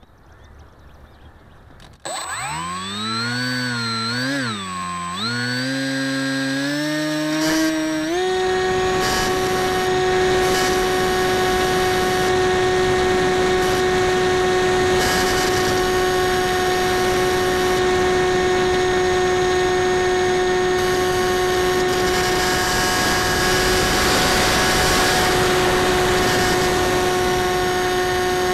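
Multiplex EasyStar II's electric motor and pusher propeller spinning up at launch: the whine starts about two seconds in, rises and wavers in pitch, then steps up near eight seconds and holds a steady high whine at full throttle through the climb, with rushing airflow over the airframe.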